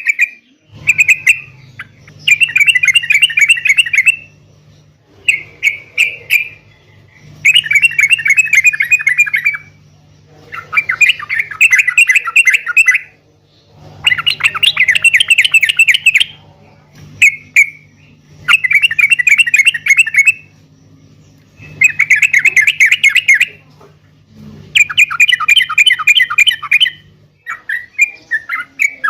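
Yellow-vented bulbul (trucuk) singing in loud, rapid, bubbly chattering phrases of one to two and a half seconds each, about ten of them with short pauses between.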